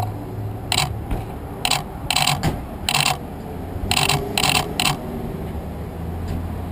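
Camera shutters firing in seven quick bursts of rapid clicking over about four seconds. A steady low engine hum from idling traffic runs beneath them.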